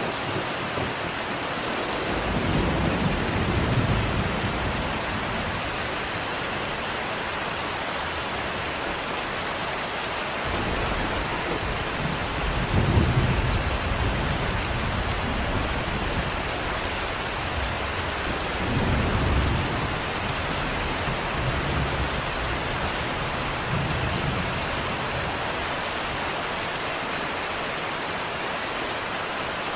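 Steady rain falling, with low rolling thunder rumbling up several times, loudest about thirteen seconds in.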